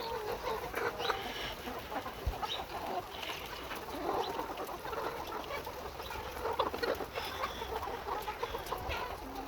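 Many caged chickens clucking and calling all at once in a constant chatter.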